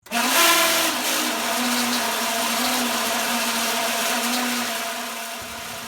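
Outdoor condenser fan of a Carrier central air conditioner running with a very loud, steady metallic shriek as it struggles to turn its blade. The noise comes from a faulty fan blade, which replacing the blade cured. It starts suddenly and eases off a little near the end.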